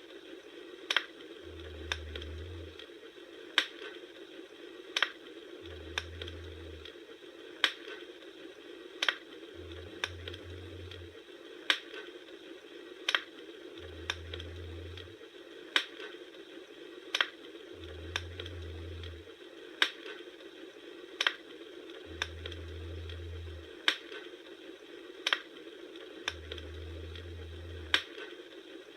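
Campfire crackling: sharp pops at strikingly even spacing, about one every second and a half, over a steady soft hiss, with a low rumble that swells and fades every few seconds.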